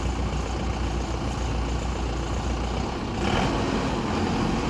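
Mahindra harvester's engine running steadily. About three seconds in, the low hum changes and a brief, noisier rush comes in.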